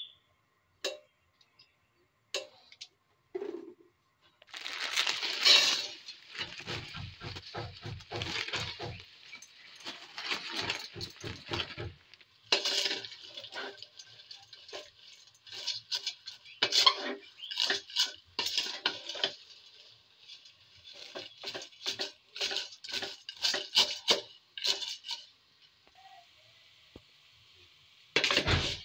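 Dry broken spaghetti pouring into a stainless steel pot, in several spells of crisp pattering and clattering on the metal.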